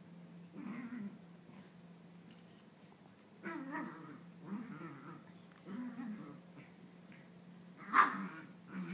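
Young Maltese dog growling in short grumbles while chasing her own tail, with one sharp bark about eight seconds in, the loudest sound. A faint steady low hum runs underneath.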